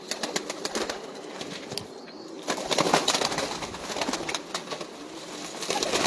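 Domestic pigeons in a loft fluttering their wings and shuffling on a wooden shelf as they are handled, with a louder burst of flapping about halfway through and some low cooing.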